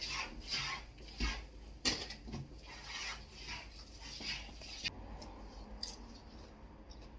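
Close-up chewing of crisp raw vegetables (lalapan), crunchy bites coming about twice a second, with one sharper click about two seconds in; after about five seconds it drops to faint mouth clicks.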